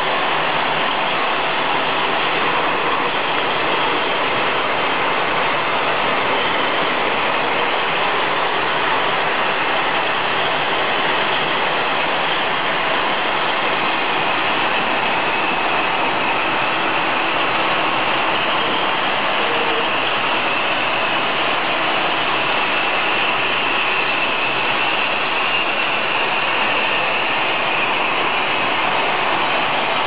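Automatic glass-bottle washing machine running, its rotating brush rollers turning: a loud, steady, even mechanical clatter and rush.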